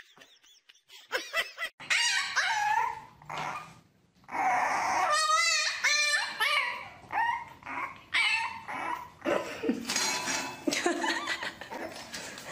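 Dog vocalizing in a run of whines and yips that bend up and down in pitch, with a longer wavering cry about five seconds in.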